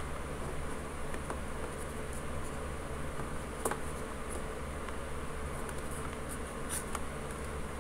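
Steady low background hum, with a couple of faint clicks from hands twisting and tying a rubber band around rolled paper.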